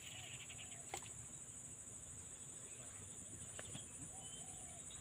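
Insects chirring steadily in a high, even band, with a single faint click about a second in.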